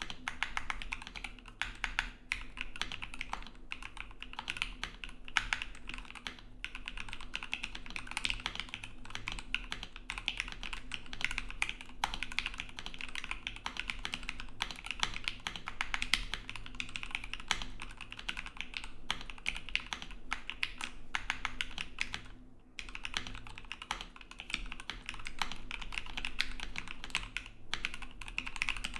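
Continuous fast typing on a KBD75V2 mechanical keyboard in a white acrylic sandwich case with plate foam, with lubed Gateron CAP Milky Yellow V2 linear switches and lubed Durock V2 stabilizers, giving a dense run of soft key clacks. The typing stops briefly about three-quarters of the way through, then goes on.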